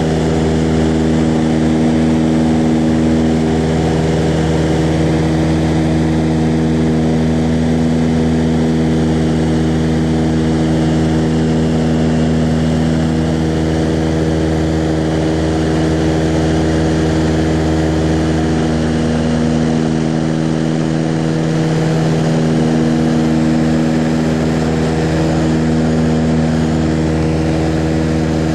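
Aircraft engine and propeller drone heard from inside the cabin in flight: a loud, steady hum that holds one pitch throughout.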